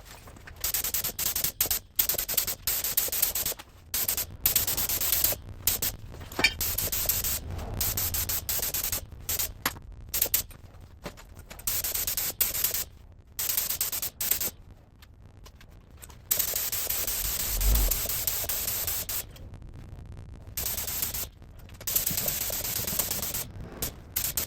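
Endozer LVLP spray gun spraying 2K primer: compressed air hissing through the gun in repeated passes of half a second to a few seconds, each starting and stopping sharply as the trigger is pulled and released.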